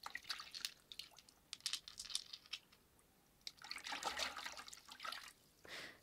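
Sound effect of a hand scooping small pebbles out of shallow water: faint splashing and dripping with small clicks of pebbles, then a longer wash of water about three and a half seconds in.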